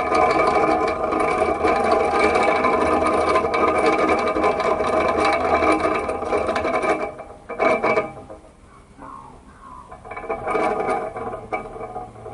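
Electric fan running with a steady motor hum and blade whir. It cuts off abruptly about seven seconds in, followed by a short knock.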